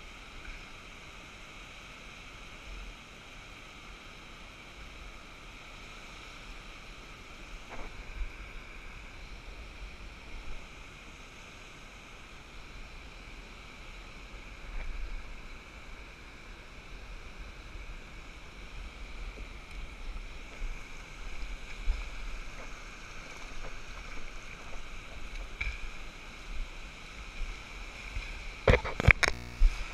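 Small surf washing up a sandy beach, a steady hiss with low wind rumble on the microphone, growing somewhat louder in the second half. A few sharp clicks come near the end.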